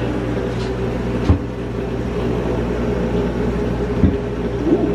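A steady machine-like hum in the background, with two sharp knocks, one about a second in and one near the end, as a plastic portable-blender cup with a stuck lid is wrestled with by hand.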